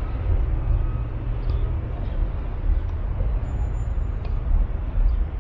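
Wind buffeting a small camera's microphone: a steady, gusting low rumble, with a few faint ticks above it.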